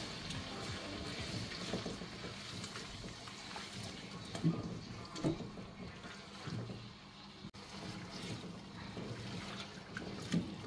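Tomato paste and onions sizzling in hot oil in a large metal pot while a spatula stirs and scrapes through them, with a few short knocks of the spatula against the pot.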